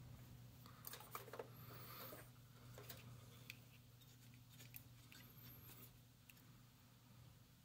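Near silence: a low steady hum with a few faint light clicks and rustles of a circuit board being handled and shifted on the bench.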